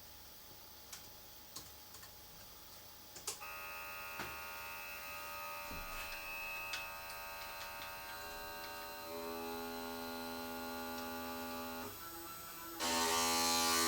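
Nema17 stepper motor turning the Emco Compact 5 lathe's tool turret, a steady electric whine made of many tones at once, during a test rotation after its alignment has been adjusted. A few light clicks come first; the motor starts about three seconds in, changes pitch partway through, stops briefly near the end and starts again louder.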